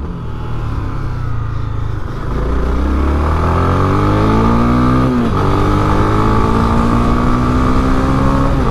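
Honda Twister 250 single-cylinder motorcycle engine pulling away and accelerating, its pitch rising steadily, dropping suddenly at an upshift about five seconds in, then climbing again until another shift near the end.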